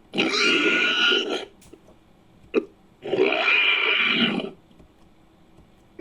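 Made-up dinosaur creature calls for a Psittacosaurus–Stygimoloch hybrid: two long, rough, burp-like calls, each about a second and a half, with a short sharp click between them.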